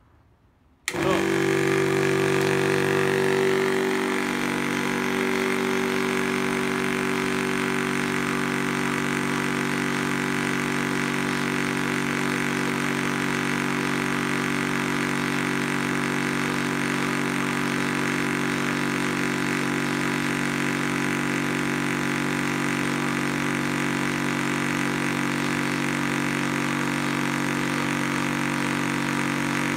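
Zhongyan electric high-pressure PCP air compressor switching on about a second in and running with a steady, even hum as it pumps up an 18 cubic inch air tank toward 4500 psi. It is a little louder for the first few seconds, then settles to a constant level.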